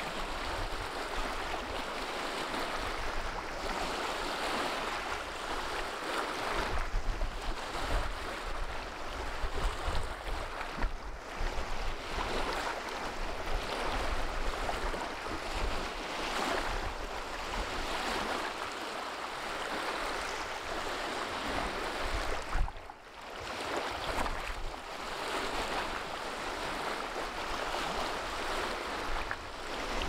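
Small wind-driven waves splashing and washing over shore rocks, swelling and ebbing every few seconds. Gusts of wind rumble on the microphone.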